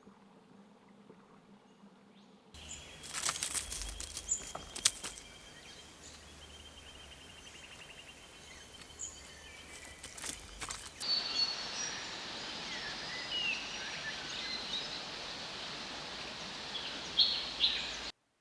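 Wild birds calling in forest: short chirps and whistles, with a rapid trill early on and a few sharp clicks or knocks. The sound changes abruptly twice, about two and a half seconds in and again around eleven seconds, and stops suddenly near the end.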